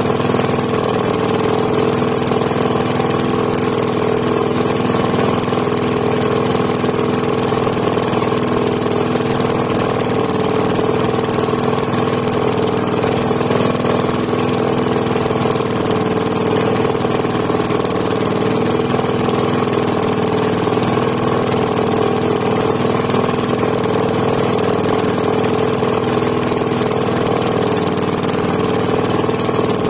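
An engine on a motorised outrigger fishing boat running steadily at an even speed, with a constant hum that does not rise or fall.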